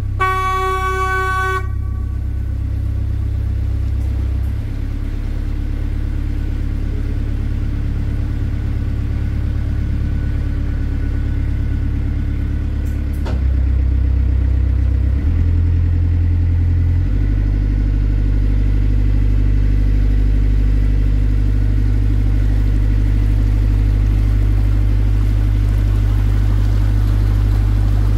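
A horn sounds once for about a second and a half at the start. Then the water taxi's engine runs steadily, its note stepping to a new pitch several times and growing louder about halfway through as the boat leaves the dock channel for the open river.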